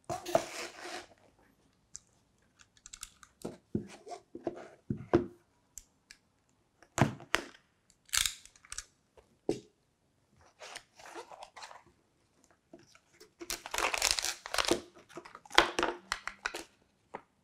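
A small cardboard box being opened: a utility knife slitting its seal, then the flaps and the plastic and paper packing inside rustling and crinkling in irregular bursts, with a few sharp clicks.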